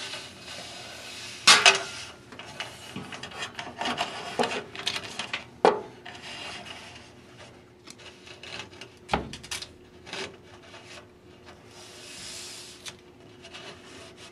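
Duct tape pulled off the roll in several rasping, ripping stretches and pressed down along a metal channel, with a few sharp knocks in between.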